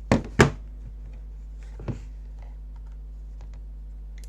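A multimeter and tools being handled on a workbench: two sharp knocks close together near the start, a softer one about two seconds in, and light scattered clicks. A steady low hum runs underneath.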